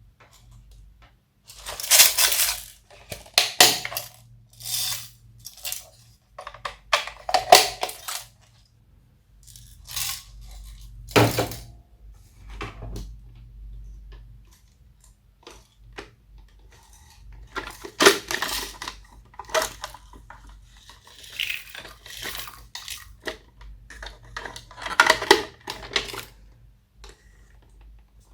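Slime being squished, stretched and mixed by hand, giving irregular bursts of clicks and crackles.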